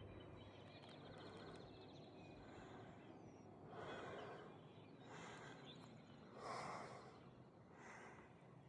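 Near silence broken by a hiker's faint breaths: four soft puffs about a second and a half apart. A bird's quick, faint trill comes about a second in.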